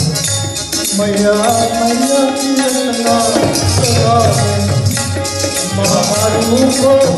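A man singing a melody into a microphone over amplified accompaniment. A steady rattling rhythm and regular low drum beats run under the voice.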